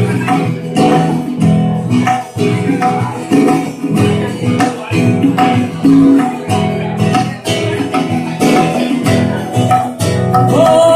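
Live band music led by strummed acoustic guitar in a steady rhythm, with tabla accompaniment.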